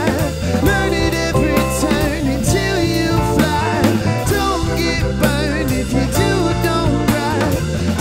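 Live rock band playing: drum kit with cymbals, electric guitar and keyboard, with a melody line that wavers in pitch.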